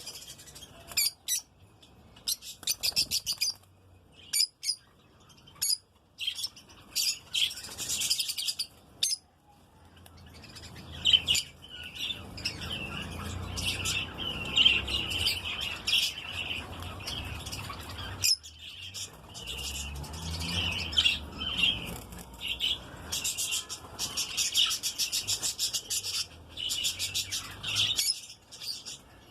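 Lutino lovebird chicks chirping in rapid, shrill trains of calls, each lasting a second or two with short gaps between, busier in the second half. A low rumble runs under the calls through the middle.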